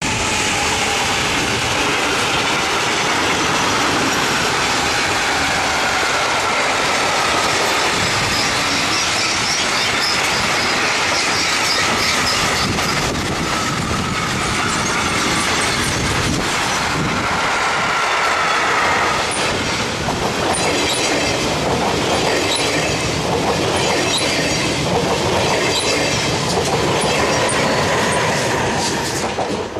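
Freight train of tank wagons rolling past close by. It makes a steady loud rumble and clatter of wheels on the rails, with wavering squealing tones from the wheels. From the second half on, a regular clicking of wheels over rail joints can be heard.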